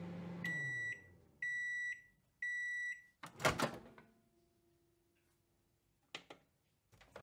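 Microwave oven finishing its run: the hum winds down and falls in pitch, three high beeps about a second apart, then the door latch pops open with a loud clunk. A few light clicks follow near the end.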